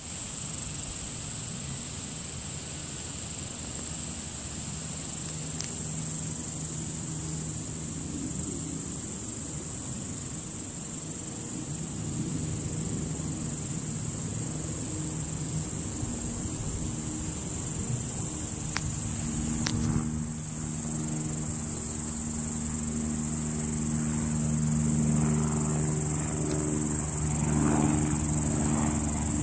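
Steady, high-pitched insect trilling of a field chorus, unbroken throughout, with a low droning hum underneath that grows stronger in the second half.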